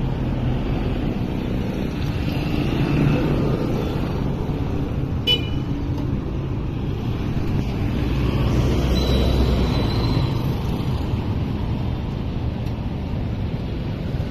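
City street traffic: motorcycle, tricycle and car engines running and passing, with a louder passing rumble around eight to ten seconds in. A brief horn toot sounds about five seconds in.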